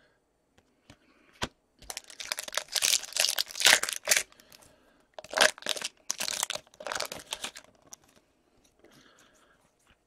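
The foil wrapper of a 2014-15 Upper Deck Series 1 hockey card pack being torn open and crinkled, in two spells of a couple of seconds each. A few light clicks of cards being handled come before and after.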